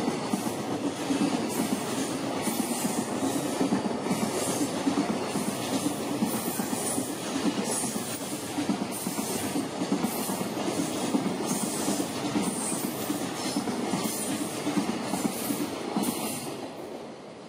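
A long freight train of loaded container flatcars rolling past at speed: a steady rumble with the wheels clacking at intervals over the rails. The sound starts to die away near the end.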